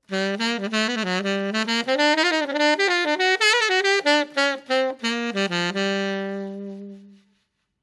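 Saxophone playing a short, quick jazz riff, ending on a long held low note that fades away about seven seconds in.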